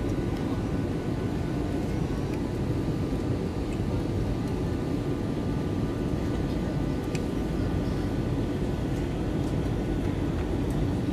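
Steady cabin noise inside a jet airliner on approach: an even, deep rumble of engines and rushing air, with a few faint steady tones above it.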